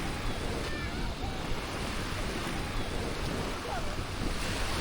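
Small Black Sea waves washing steadily onto a sandy shore, with wind on the microphone.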